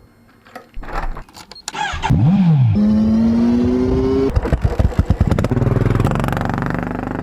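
Royal Enfield Himalayan motorcycle's single-cylinder engine: scattered clicks at first, then a quick rev that rises and falls about two seconds in, then the engine pulling with its pitch climbing steadily. About halfway through comes a run of sharp irregular cracks, then steady running.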